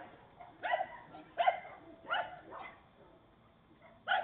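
A dog barking out of sight: about five short barks, most under a second apart, with a pause of more than a second before the last one. Picked up by a surveillance camera's microphone.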